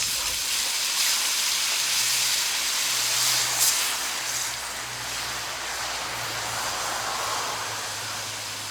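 Beef stock poured into a hot cast iron Dutch oven of browned mince and vegetables, hissing and sizzling as it hits the pan. The hiss swells a little past three seconds in, then settles to a steady simmering sizzle.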